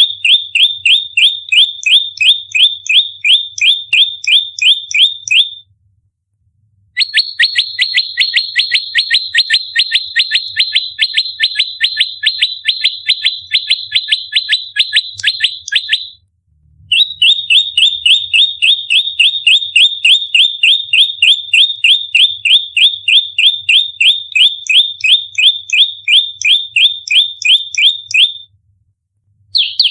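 Prenjak lumut (olive-backed tailorbird) giving its fighting call: a rapid, close-set string of sharp, high chirping notes, about four or five a second, in three long bouts broken by short pauses.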